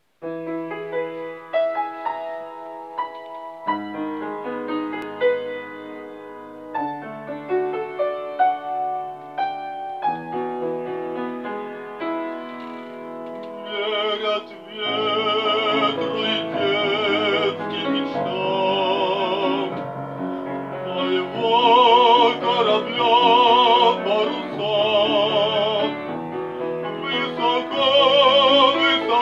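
Grand piano playing a solo introduction. About halfway through, a male classical singer comes in with a wide vibrato, accompanied by the piano.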